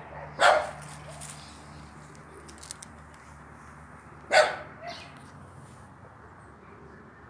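A dog barking: single sharp barks about four seconds apart, the second followed quickly by a softer one.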